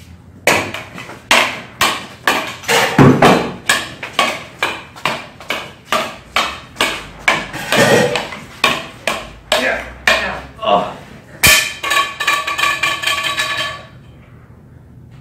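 Wooden sticks clacking together over and over in a staged stick fight, about two strikes a second. A harder hit about eleven seconds in is followed by a steady pitched tone lasting about two seconds.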